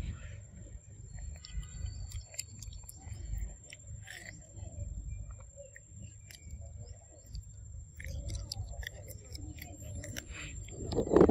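Macaques chewing and biting kernels off a corn cob close to the microphone, with scattered small crunches and clicks. A louder short noise comes near the end.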